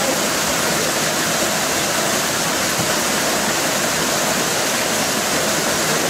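Steady rush of flowing water over rocks, an even, unbroken sound.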